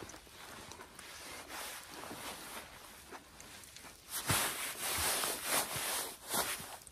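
Quiet chewing of a mouthful of food, then, about four seconds in, louder rustling.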